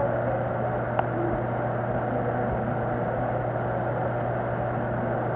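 A steady low mechanical hum over an even background noise, with one sharp click about a second in.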